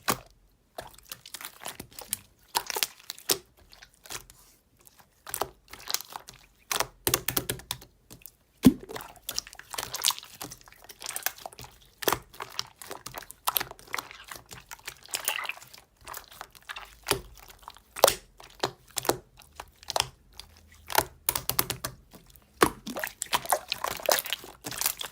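Clear slime mixed with butter slime being squished and pressed by hand, giving a dense, irregular run of sticky clicks and crackling pops.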